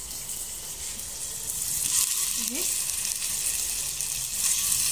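Raw minced-meat kofta frying in hot oil in a frying pan: a steady sizzle that grows louder about two seconds in, as more kofta fingers go into the pan.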